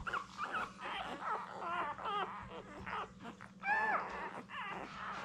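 Newborn English Springer Spaniel puppies squeaking and whimpering: many thin, wavering cries overlapping one another, with one louder cry nearly four seconds in.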